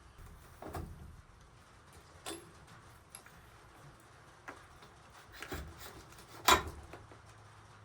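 Scattered clicks and knocks of hand tools and small parts being handled during work on a dirt bike's throttle and handlebar, the loudest knock about six and a half seconds in.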